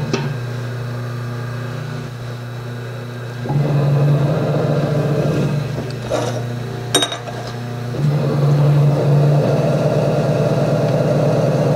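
Electric potter's wheel motor humming as the wheel spins, its hum stepping up and down a few times as the wheel speed changes. A sharp click about seven seconds in.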